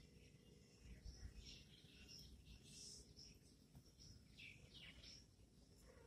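Near silence: faint outdoor background with a few short, high bird chirps, some falling in pitch.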